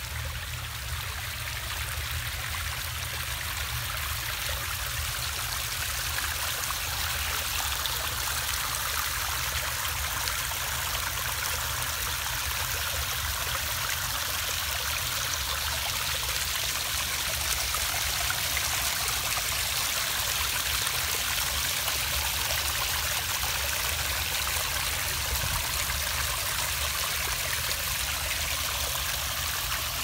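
Pondless waterfall: water spilling steadily down stacked flat stone ledges in a continuous trickling, splashing rush. It grows slightly louder over the first several seconds, then holds steady.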